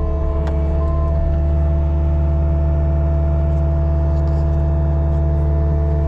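Caterpillar 299D2 compact track loader's diesel engine running steadily, with a steady whine over its low rumble, heard from inside the cab. A couple of faint clicks sound about half a second in.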